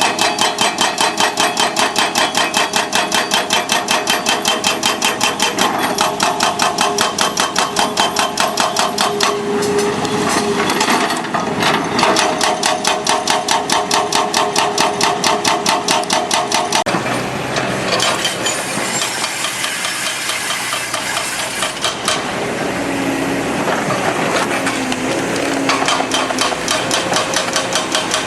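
An excavator at work, with a rapid, even mechanical hammering of about seven or eight blows a second. After the middle the hammering gives way to several seconds of uneven engine and hydraulic noise, then returns near the end.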